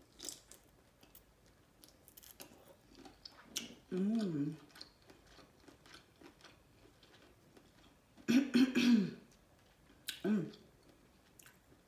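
Close-miked chewing: wet mouth clicks and smacks of a person eating seafood-boil food with her mouth closed. It is broken three times by short voiced hums, the loudest about two-thirds of the way through.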